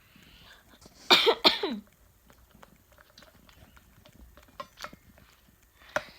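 Two short coughs in quick succession about a second in, then faint scattered clicks and ticks.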